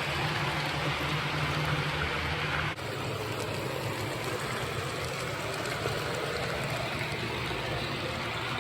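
HO scale brass steam locomotive and coaches running on model track: a steady whirring, rushing running noise. A low hum drops out abruptly about three seconds in.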